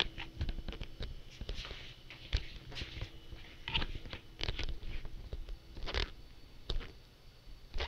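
Handling noise from a hand-held camera being moved about: irregular light clicks, taps and rustles, with a couple of sharper knocks.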